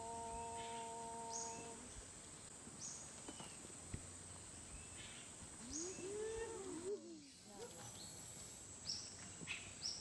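Rainforest ambience: a steady high insect buzz with short high chirps repeating about every second and a half. A low steady hum stops about two seconds in, and a few rising-and-falling calls come about six seconds in.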